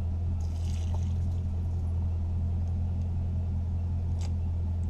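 A steady low mechanical hum, with a short hiss about half a second in as coolant starts to escape around the coolant temperature sensor being unscrewed, and a single light metallic click a little after four seconds.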